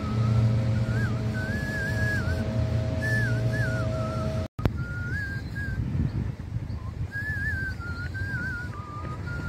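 A person whistling a wandering tune in short phrases, over a steady low hum. The hum stops at a brief dropout about halfway, and the whistling carries on after it.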